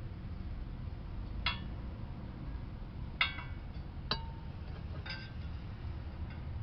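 Four sharp metallic clicks and clinks of a spark plug socket knocking against the engine as a new spark plug is fitted into its hole by hand, over a steady low background rumble.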